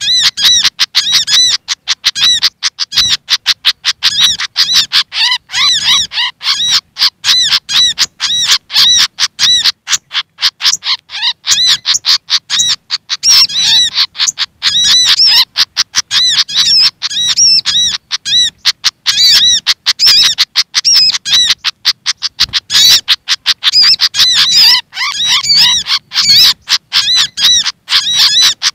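Agitated bird calls from a lure recording: the sikatan kipas (Malaysian pied fantail) chattering and scolding mixed with the calls of the sogok ontong. It is a dense, unbroken run of rapid, repeated high chirps with barely a pause.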